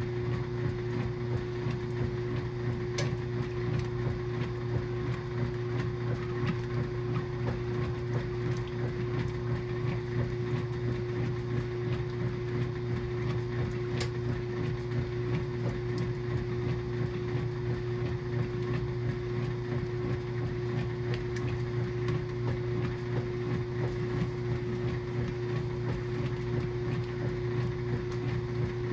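KitchenAid washing machine running on its low speed setting, its motor humming steadily at an even pitch, with faint ticks now and then.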